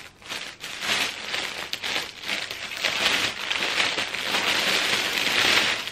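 Clear plastic garment packaging crinkling and rustling steadily as a folded cloth garment inside it is handled and pulled out, growing louder in the second half.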